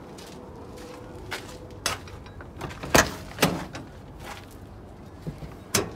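Semi-truck cab door being opened and the cab climbed into: a handful of sharp clunks and knocks, the loudest about three seconds in and another near the end.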